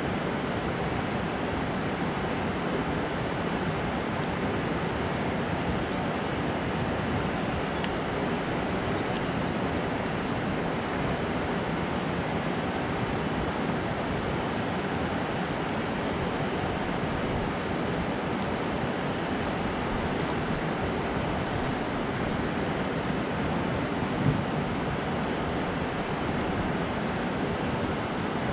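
Steady rush of water pouring over a dam spillway and churning in the channel below. One short knock near the end.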